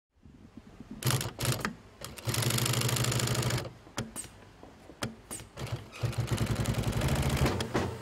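Sewing machine running in bursts, stitching at a steady rapid rate: a couple of short spurts, then two longer runs of about a second and a half each.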